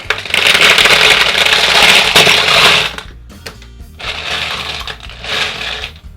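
Plastic toy packaging being torn open and handled, a loud crackling rustle for about three seconds, then two shorter bursts of crinkling, over quiet background music.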